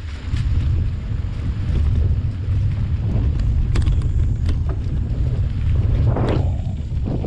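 Wind buffeting the microphone as a mountain bike rolls along dirt singletrack, with a steady low rumble under scattered sharp clicks and rattles from the bike over the rough trail. A brief louder scrape of tyre noise comes about six seconds in.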